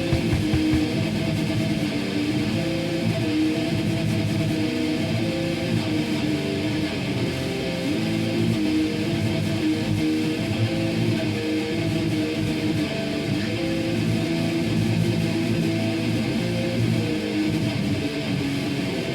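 A song led by electric guitar playing strummed chords, running steadily.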